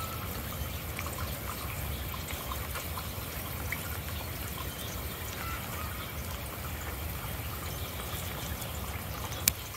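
Steady rain falling on wet pavement and puddles, a constant hiss scattered with small drop patters. A single sharp click sounds near the end.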